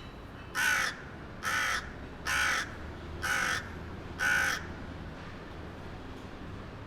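A bird calling five times: short harsh calls, evenly spaced about a second apart.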